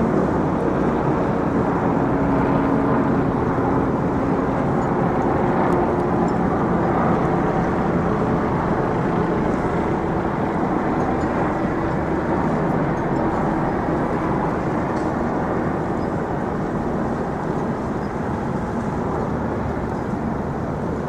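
Steady engine rumble with a faint hum that slowly shifts in pitch.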